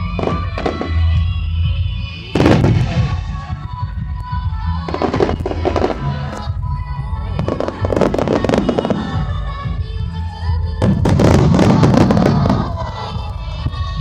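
Aerial fireworks shells bursting one after another, with crackling trails; the densest, loudest barrage comes near the end. Music plays steadily underneath.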